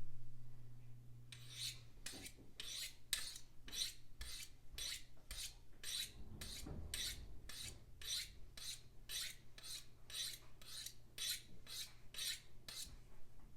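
A Buck 110 knife's blade stroked along a Victorinox sharpening steel: short metal-on-metal scraping strokes in an even rhythm of about two to three a second, starting about a second in and stopping near the end. The blade's edge is being honed sharp.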